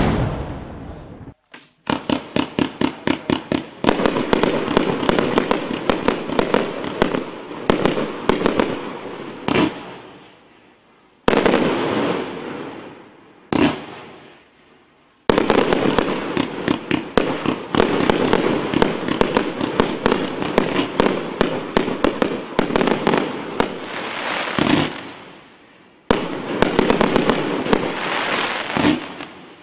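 A 100-shot consumer fireworks cake firing in rapid fan-shaped volleys, several shots a second, with the shells bursting overhead. Each run fades off before the next volley starts, with short lulls between them. It opens with the end of a brief firework sound that cuts off suddenly about a second in.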